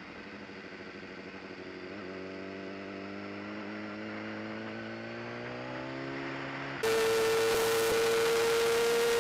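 Racing superbike engine heard from an onboard camera, its note climbing slowly and steadily for the first several seconds. About seven seconds in it jumps suddenly to a much louder, steady high-revving engine tone with heavy wind rush.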